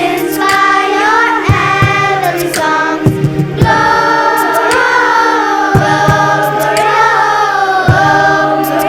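School choir singing in harmony, with several voices moving together over a steady low held note.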